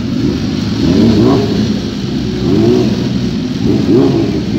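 Sport motorcycle engine revved in short throttle blips, about three times, each rising and falling in pitch over a steady idle.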